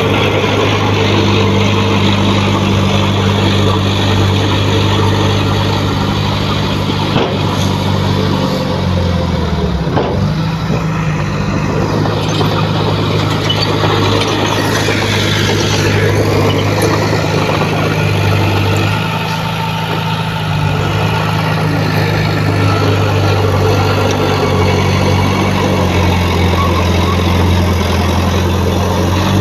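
Heavy earthmoving machinery's diesel engine running steadily. Its pitch drops and comes back up about ten seconds in.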